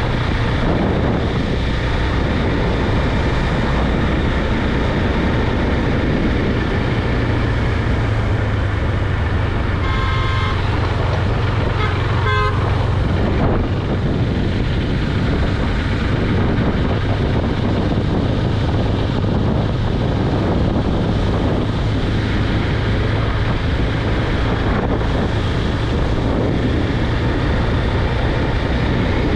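KTM Duke 390's single-cylinder engine running steadily at riding speed, with wind on the microphone. A vehicle horn honks briefly about ten seconds in and again about two seconds later.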